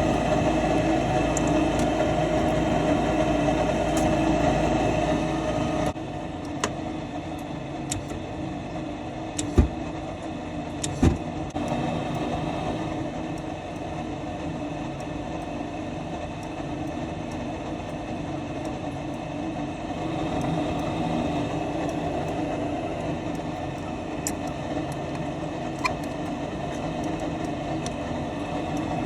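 Steady motor hum with a steady tone, dropping suddenly in level about six seconds in, then running on more quietly, with two sharp clicks around ten and eleven seconds in.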